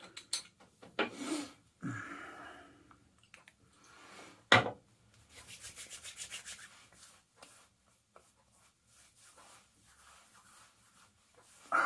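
Hands rubbing skin cream into the face and neck: soft scrapes of palms on skin and stubble, with a quick run of rubbing strokes, about five a second, around six seconds in. A single sharp knock about four and a half seconds in is the loudest sound.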